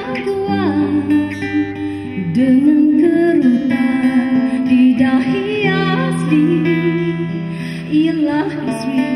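A woman singing through a microphone over instrumental backing, holding long notes with a wavering vibrato.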